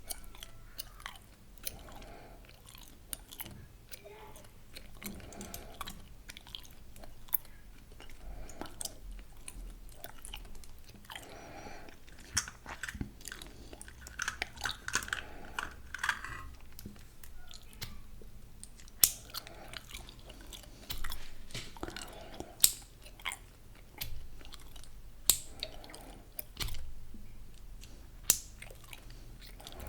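Gum being chewed, with irregular moist clicks through the chewing.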